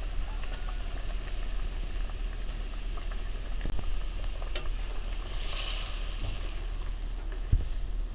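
Egg-curry gravy bubbling at a boil in a steel kadai, with a few small clicks and a short hiss about five and a half seconds in. A sharp knock comes near the end as a metal spatula goes into the pan.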